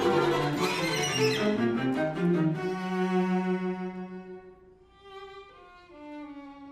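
String quartet of two violins, viola and cello playing a dense, agitated passage of many overlapping notes that breaks off about two and a half seconds in. A low held note then fades away under quieter sustained high notes that shift pitch twice near the end.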